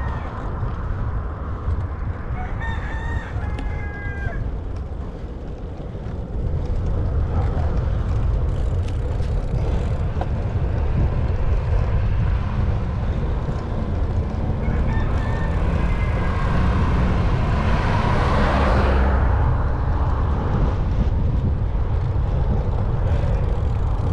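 A rooster crowing twice over a steady low rumble of wind and road noise, with a louder whoosh of passing noise about eighteen seconds in.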